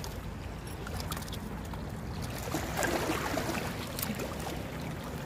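Small waves lapping and sloshing against the shore rocks, with a short spell of scrabbling knocks about three seconds in.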